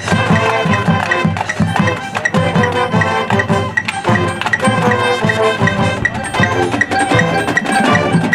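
Marching band playing its show music: brass and winds over a steady beat of drums and mallet percussion.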